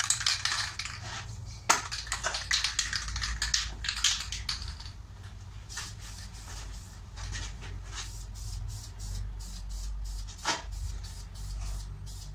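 Aerosol can of engine high-heat ceramic paint being shaken, its mixing ball rattling fast for the first few seconds, then a few short bursts of spray as the driveshaft is painted. A steady low hum sits underneath.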